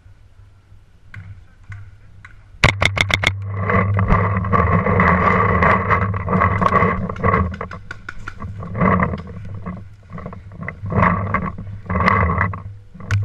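A paintball marker fired in a rapid burst of about seven shots, a few seconds in. Then a loud continuous droning sound with a steady pitch runs on, broken by many sharp clicks.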